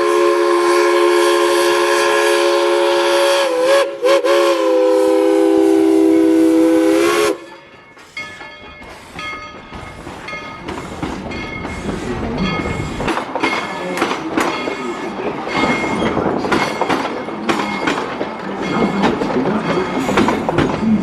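Steam locomotive's multi-tone whistle sounding a long blast, briefly broken about four seconds in and cut off about seven seconds in. The engine then pulls away with exhaust chuffs that come faster and grow louder as it picks up speed.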